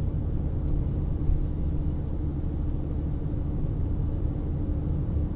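Steady low road and engine rumble inside a moving car's cabin, with a faint steady hum above it.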